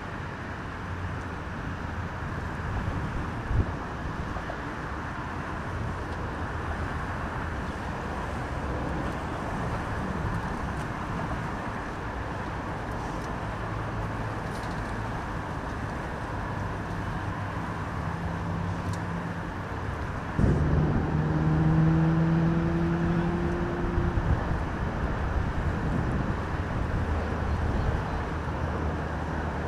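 Road traffic running steadily, with engines humming under the noise of tyres. About twenty seconds in, a louder vehicle's engine comes in suddenly with a clear hum and fades over a few seconds.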